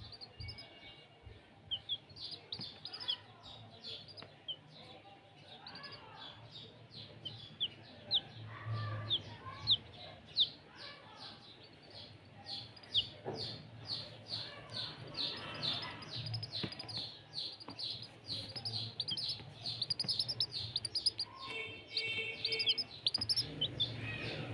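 A group of chicks peeping: many short, high-pitched peeps that fall in pitch, several a second, coming thicker from about halfway through.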